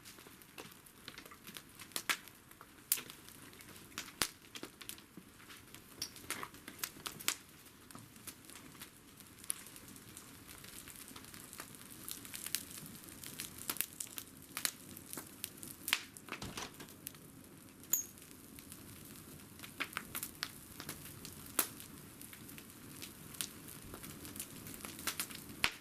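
Bonfire burning down, crackling: irregular sharp snaps and pops over a steady low hiss.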